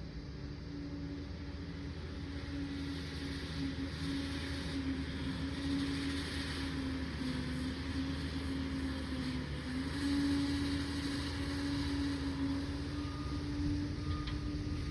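Liebherr 746 crawler dozer's diesel engine running steadily, its pitch wavering slightly and dipping, then picking up again about two-thirds of the way through.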